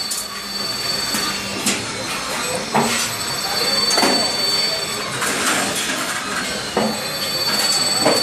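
Roll forming machine running, a steel strip feeding through its stands of forming rolls: a steady high-pitched squeal over a mechanical clatter, with sharp metallic knocks every second or two.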